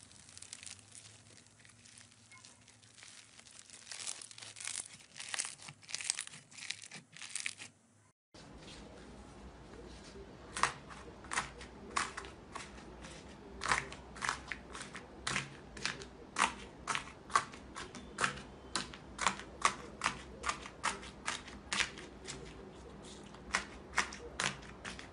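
Foam-bead slime squeezed by hand, crackling in short clicky bursts that grow busier. After a cut, thick grey-blue slime full of white foam balls is pressed and pulled apart, giving a run of sharp crackling clicks about two a second.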